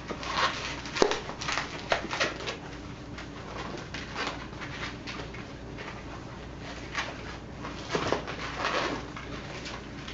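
Latex modelling balloons being handled and twisted, the rubber squeaking in short, irregular squeals with small rubbing clicks.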